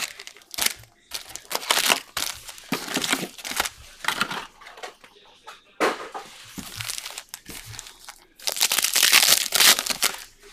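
Foil wrappers of 2023 UFC Optic trading-card packs crinkling and tearing as they are handled and ripped open by hand, in irregular bursts, the longest and loudest stretch near the end.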